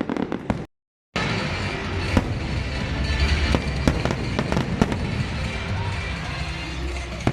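Fireworks and firecrackers going off in a dense run of sharp cracks and bangs over a low rumble, with the sound cutting out completely for about half a second near the start.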